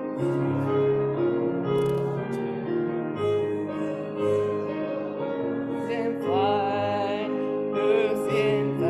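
Piano playing a hymn, with singing coming in about six seconds in.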